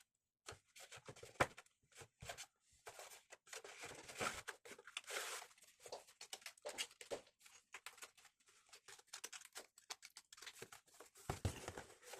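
Keyboard packaging being handled: cardboard and wrapping rustling and crinkling, with irregular clicks and taps.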